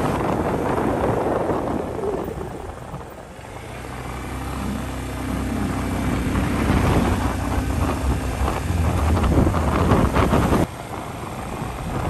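Engine of the camera's vehicle running on the move, with wind rushing over the microphone. The engine note comes up clearly about a third of the way in and shifts in pitch, and the sound cuts off abruptly near the end.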